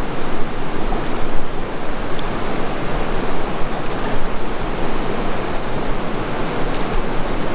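A fast-flowing river rushing over a riffle of white water: a steady, loud wash of running water.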